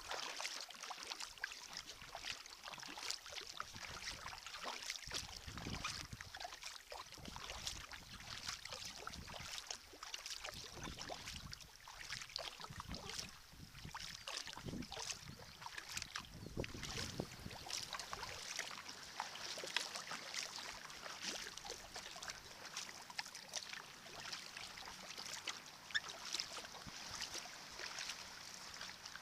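Sea kayak being paddled: water splashing and dripping off the paddle blades with a steady patter, swelling with each stroke every couple of seconds.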